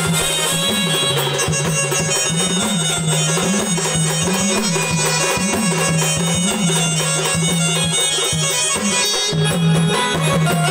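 Instrumental Marathi gondhal folk music: a reedy, sustained melody with drums and a low line that repeats about once a second.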